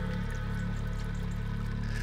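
Film score drone: several low and middle tones held steady together, with water trickling and dripping faintly beneath it.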